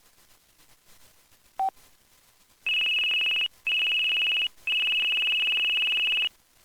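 Verizon flip phone playing one of its built-in ringtones through its small speaker: a single short, lower beep, then about a second later a high, fast-pulsing ring in three bursts, two short and one longer.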